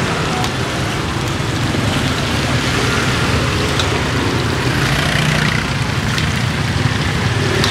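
Pieces of pork offal sizzling in a pan of hot oil, a steady hiss with faint pops, over the steady rumble of street traffic.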